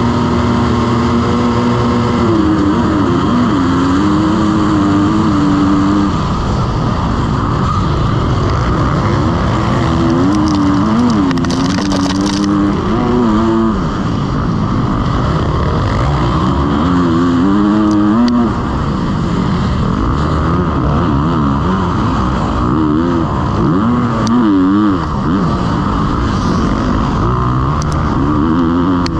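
Motocross bike engine revving up and down over and over, loud and continuous, its pitch climbing and dropping every few seconds as the throttle is worked.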